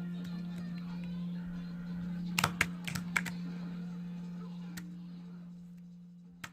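Slime being handled, giving a quick run of sharp clicking pops a little over two seconds in and a couple more near the end, over a steady low hum that fades out at the close.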